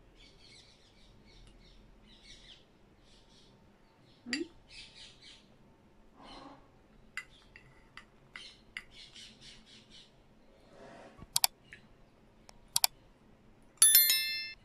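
Metal spoon clinking and scraping in a glass dessert cup of tiramisu, with soft chewing and mouth sounds. Two sharp clinks come late on, then a louder strike just before the end that sets the glass ringing briefly.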